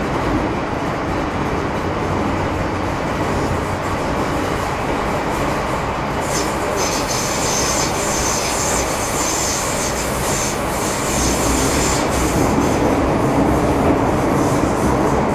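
MTR Metro Cammell M-Train (CT-Stock) electric multiple unit running at speed, heard from on board as a steady rumble and rattle. About six seconds in a high-pitched squeal joins it for roughly six seconds, then fades.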